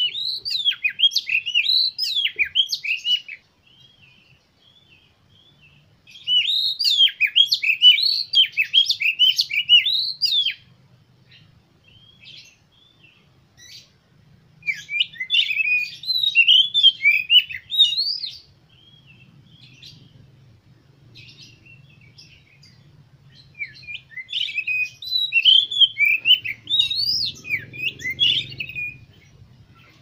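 Oriental magpie-robin singing in four bursts of rapid, varied song, each a few seconds long, made of quick sweeping high notes with short pauses between.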